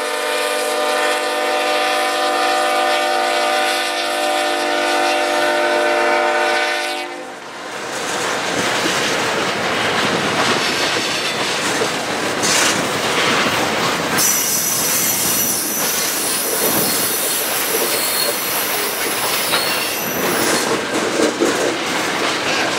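A Nathan Airchime K5HL locomotive horn sounding a long steady chord that cuts off about seven seconds in, followed by the rumble and clickety-clack of tank cars rolling past on the rails. A high wheel squeal comes in about halfway through and fades out again.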